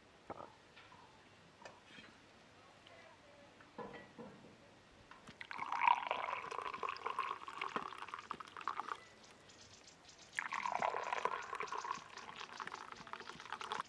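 Tea poured from a kettle into glass tea glasses: two pours, each lasting about three to four seconds, the first starting about five seconds in, with the stream splashing and ringing in the glass as it fills. A few faint taps come before the pours.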